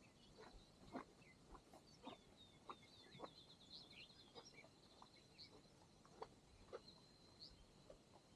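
Faint footsteps of a hiker walking through pasture grass at a steady pace, with a bird singing high and thin in the distance, breaking into a quick trill about three seconds in.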